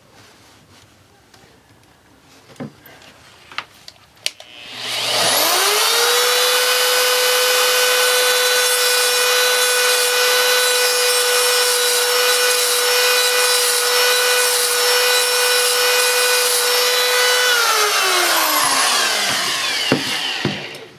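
High-speed rotary tool spinning up about four seconds in, running at a steady high-pitched whine for about twelve seconds, then winding down. It is being used to grind material off an AR-15 part.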